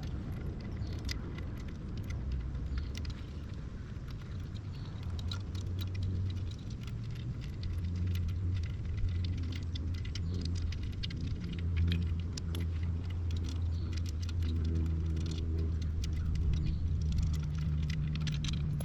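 Scattered light metallic clinks and taps as the lower unit of an outboard motor is worked loose and down, over a low steady hum.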